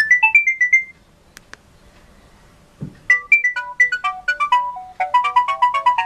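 Alcatel OT-S121 mobile phone ringtones previewed through its small speaker: a fast melody of short beeping notes ends about a second in, two short clicks and a soft thump follow in the pause, and a new quick melody of short notes starts halfway through.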